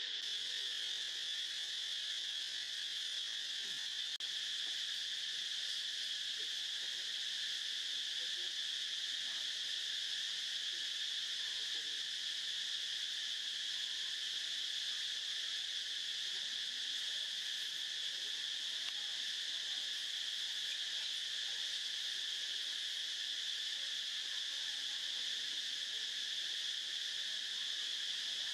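Steady insect chorus: an unbroken, even high-pitched drone that neither rises nor falls.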